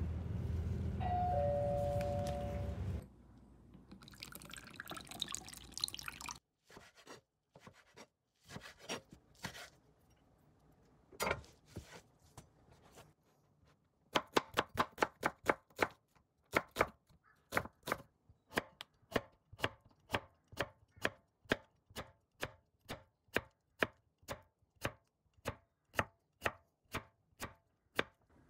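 Chef's knife chopping on a wooden cutting board, slicing an onion and then a cucumber. The strikes are scattered at first, then from about halfway in become a steady run of about two to three a second. The opening seconds hold a low rumble and two short descending beeps.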